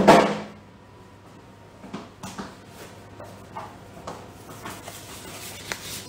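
A polycarbonate chocolate mold knocked against the counter to release chocolate bars, the loudest knock right at the start and fading within half a second. Scattered light clicks and paper rustles follow as the unmolded bars are handled.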